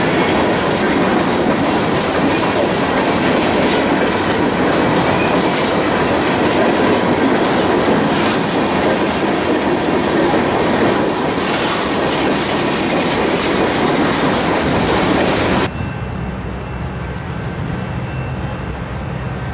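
Freight train of open-top hopper cars rolling past close by: a steady loud rumble of steel wheels on rail with clickety-clack over the rail joints. About 16 s in the sound drops suddenly to the low, steady drone of a diesel locomotive approaching in the distance.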